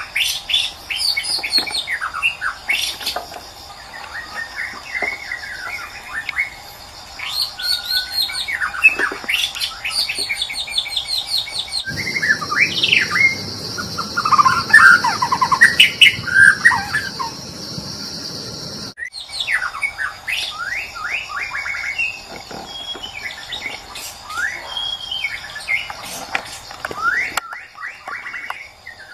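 White-rumped shama singing a long run of varied whistled phrases, quick rising and falling notes and trills, over a steady high buzz. The recording changes abruptly a few times, as separate song clips are spliced together.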